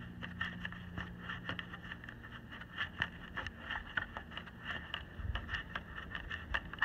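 Small irregular clicks and scraping of a radar power-cable connector being twisted and worked loose by hand, with a faint low hum that stops about two seconds in.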